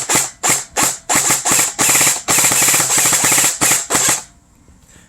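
Tippmann Tactical Commando airsoft electric gun (AEG) with a Jefftron Leviathan trigger firing in binary mode, a shot string on each trigger pull and release: several short strings of rapid shots, then longer runs at about 20 rounds a second, stopping about four seconds in.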